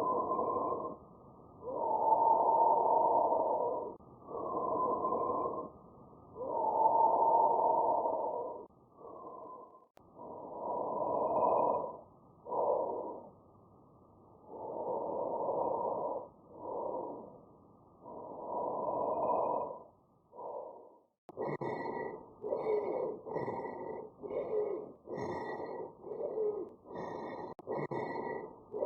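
Recorded lung sounds, in three clips. First a bronchial breath sound. From about ten seconds in, vesicular breathing, with a longer, louder inhalation and a short, soft exhalation. From about twenty-one seconds in, faster breaths carrying a low-pitched monophonic wheeze.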